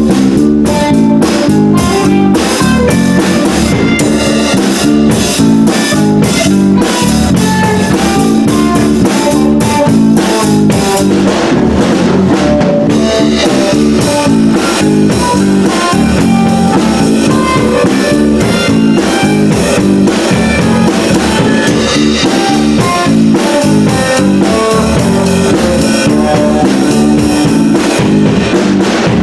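A small rock band playing live: electric guitars, bass guitar and a drum kit, loud and steady throughout.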